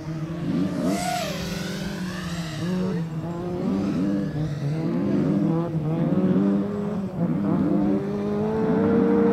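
Rally car engine revving hard, its pitch climbing and dropping in several quick steps a few seconds in as it changes gear, then holding high near the end.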